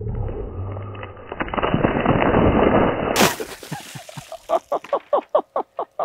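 A bucketful of water splashing down onto a wide wooden slab, a rushing splatter that grows louder and then cuts off suddenly about three seconds in. After that a person laughs in a quick run of short bursts.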